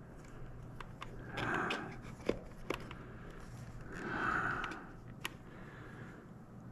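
Quiet handling of small plastic joystick parts and screws: a few light clicks and two soft rustles.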